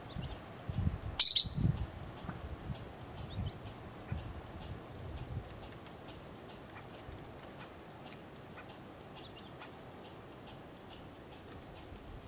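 Arctic ground squirrel (siksik) making one short, sharp noise about a second in, the loudest sound here. Soft low thumps come in the first two seconds, then only faint ticking and a few faint distant calls.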